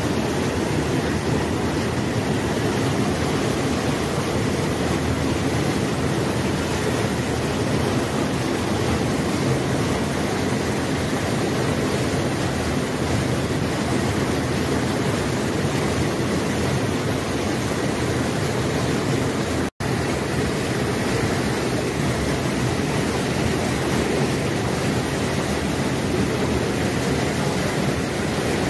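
Floodwater rushing over a concrete overflow weir: a steady wash of churning water, broken by a split-second gap about two-thirds of the way through.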